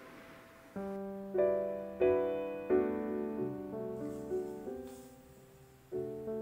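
Background music: a piano playing a gentle tune in chords, each note struck and dying away.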